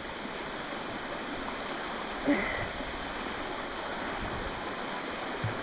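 Steady rush of water from a waterfall pouring into a rock pool, heard from the water's surface, with one brief louder sound about two seconds in.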